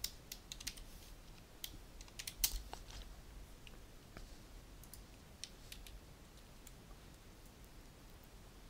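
Faint, scattered clicks of a computer mouse and keyboard keys, several in quick succession in the first three seconds, then a few sparser ones.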